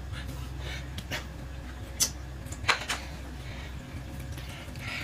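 Tableware knocking and clicking on a table as a plate is set down and chopsticks are handled: a few short sharp clicks, the clearest about two seconds in and near three seconds, over a low steady hum.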